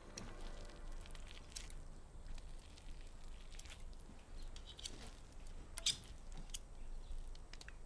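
Quiet kitchen handling sounds: a spoon working potato dough in a bowl, with soft squishing and scattered light clicks over a faint low hum.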